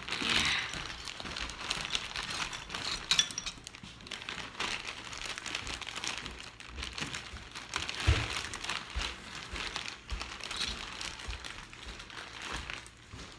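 Clear zip-top plastic bag crinkling as it is handled, with loose Lego pieces clicking onto a stone countertop. There is a louder knock about eight seconds in.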